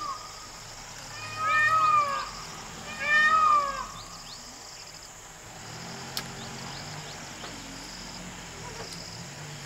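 Two loud, drawn-out, meow-like animal calls about a second and a half apart, each rising then falling in pitch, followed by faint high insect chirping.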